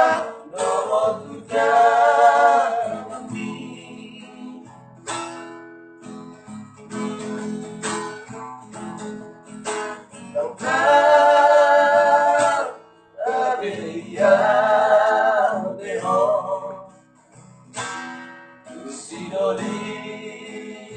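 A song with a singer holding long notes over a strummed acoustic guitar. There are three long held notes, near the start, in the middle and a little after, between stretches of guitar strumming.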